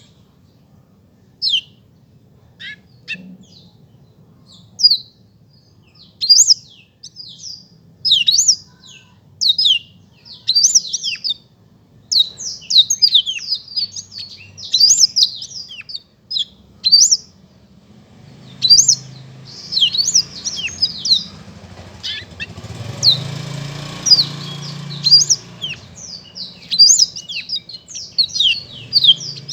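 Black-throated canary singing in fast, high-pitched chirping phrases. The phrases are spaced out at first and run almost without a break later on. A low background rumble comes in a little past the middle.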